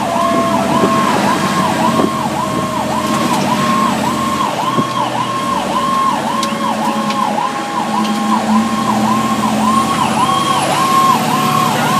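Fire engine siren in a fast yelp, about three rise-and-fall cycles a second, heard loud from inside the cab. Under it a second, lower siren tone slowly winds down in pitch and climbs again about seven seconds in.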